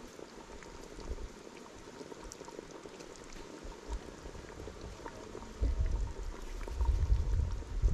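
Pot of soup bubbling on the boil, with small pops. A loud low rumble comes in about two-thirds of the way through.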